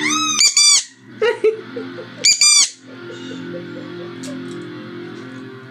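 Sun conure giving a run of loud, arching squawks in its 'singing' along to music, bunched in the first three seconds, over music playing in the background.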